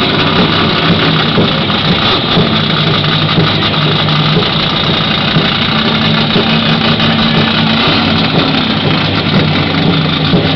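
Race car engine idling, loud and steady.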